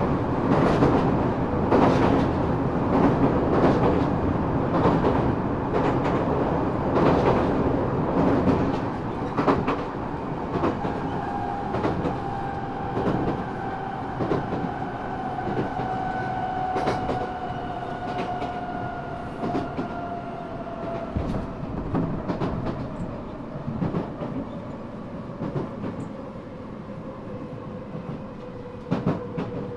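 Eidan 6000 series subway car 6301 running, heard from its floor: wheels clacking over rail joints, then from about ten seconds in a slowly falling whine from its high-pitched Mitsubishi three-level VVVF inverter, a unit taken over from a 7000 series car, as the train slows.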